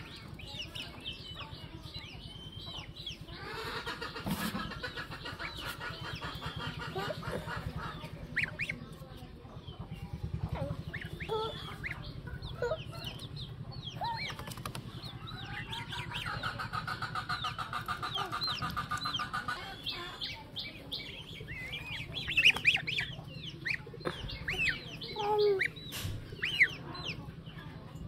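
Young poultry peeping in many short chirps, with chickens clucking; twice a rapid rattling trill runs for about three seconds, and a steady low hum sits underneath.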